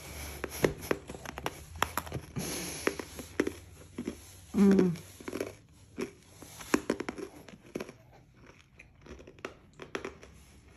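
Freeze-dried Starburst candy being chewed close to the microphone: irregular sharp crunches and crackles, thinning out over the last few seconds. A brief low hum of the voice about halfway through is the loudest sound.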